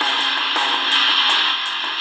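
Guitar music with cymbal hits playing through the small speaker of a Tecsun DR-920C portable radio, received on FM from a low-power FM transmitter. It sounds thin, with no deep bass.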